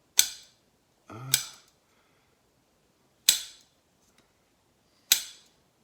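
Tongs clacking sharply four times, one to two seconds apart, as they snap shut and fail to grip an orange.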